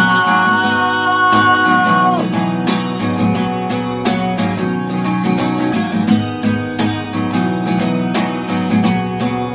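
A man holds a long sung note over strummed acoustic guitar. The voice stops about two seconds in, and the acoustic guitar strumming carries on alone.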